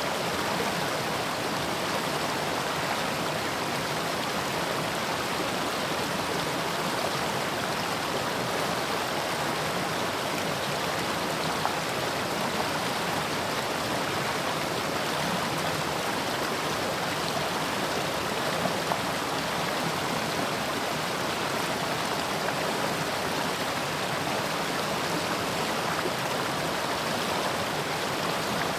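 Mountain stream rushing and babbling over rocks, a steady even flow of water with small splashes.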